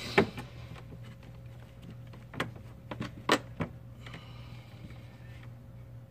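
A handful of sharp clicks and knocks from handling, as multimeter probe leads are placed on the golf cart solenoid's big post, the loudest right at the start and a quick cluster a little after two seconds in, over a steady low hum.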